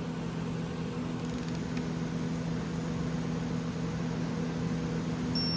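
Steady machine hum with a few fixed low tones, like a running fan or other shop machinery. A short high beep sounds near the end.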